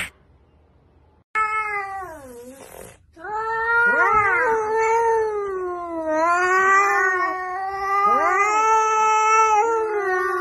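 Cat yowling: one falling call about a second and a half in, then a long unbroken caterwaul that wavers up and down in pitch.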